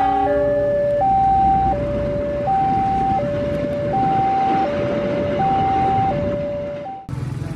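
Railway level-crossing warning alarm sounding an alternating high-low two-tone signal, each tone lasting under a second, over steady background noise. It cuts off suddenly near the end.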